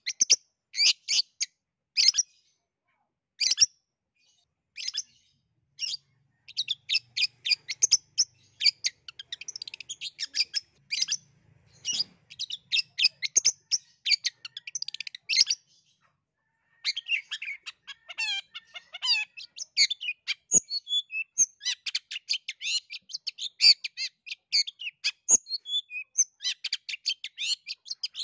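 Long-tailed shrike singing: a few short, sharp high notes spaced apart at first, then from about six seconds in a fast, unbroken run of chattering notes, which stops briefly around sixteen seconds and then resumes just as fast, with a few downward-slurred notes in the restart.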